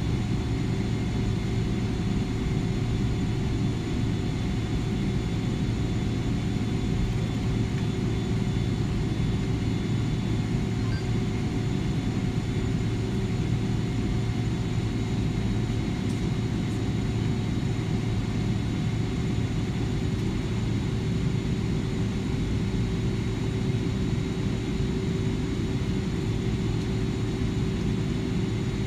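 Airliner cabin noise while taxiing: a steady low rumble from the engines and the cabin air system, with a few steady humming tones over it.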